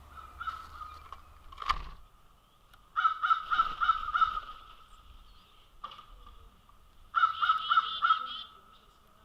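American herring gull calling: two runs of about five loud calls in quick succession, roughly four a second, the first about three seconds in and the second about seven seconds in, with fainter single calls between. A single sharp knock comes shortly before the first run.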